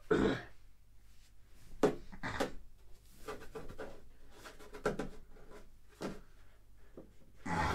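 Scattered rustling and knocking handling noise from a camera moving against a cloth surface, with a couple of short breathy vocal sounds about two seconds in.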